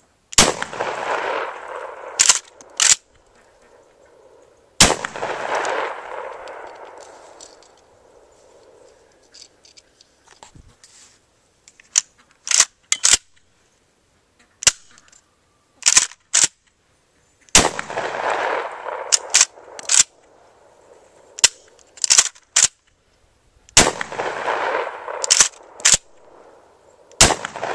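Kel-Tec KSG 12-gauge bullpup pump-action shotgun fired five times with 3-inch magnum 00 buckshot: each loud shot has a long echo dying away over a second or two. Sharp clacks of the pump being racked and handled come between the shots. The first two shots fall about four seconds apart, then there is a gap of about twelve seconds with only scattered clicks before the last three.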